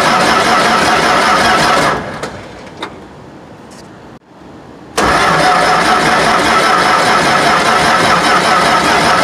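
Massey-Ferguson 300 combine engine being cranked on a cold-start attempt. The cranking dies away about two seconds in, leaving a short lull with a couple of clicks, then starts again abruptly about three seconds later.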